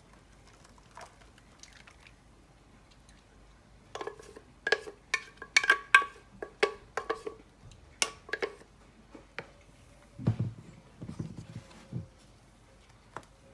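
A wooden spoon knocks and scrapes against a blender jar as the last of a thick green chile sauce is scraped out onto the shrimp: a quick run of sharp clinks with a short ring. Near the end comes softer sloshing as the spoon stirs the sauce and shrimp in a glass baking dish.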